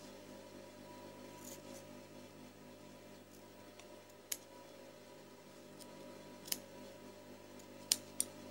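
Large tailor's shears cutting into quilted jacket fabric to open a welt pocket slit: soft snips with a few sharp clicks of the blades, spaced a second or two apart and coming closer together near the end. A steady low hum runs underneath.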